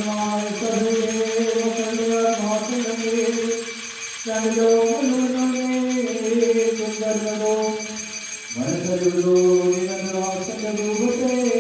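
Malankara Orthodox liturgical chant sung in long held notes, with new phrases beginning about four and eight and a half seconds in. Metal jingling from the servers' ceremonial fans (marwahas) being shaken runs underneath.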